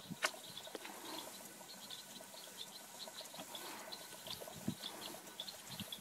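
Faint outdoor ambience of insects chirping: many short, high chirps scattered throughout, with a single light click just after the start.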